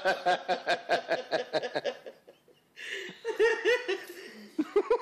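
Laughter in quick repeated pulses, stopping for a moment about two seconds in, then starting again twice.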